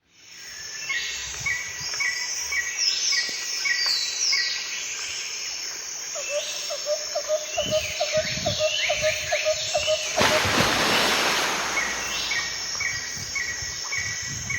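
Several birds singing outdoors: repeated short high chirps and downward-sliding whistles, with a quicker, lower-pitched run of chirps in the middle. A burst of rushing noise comes about ten seconds in and lasts a couple of seconds.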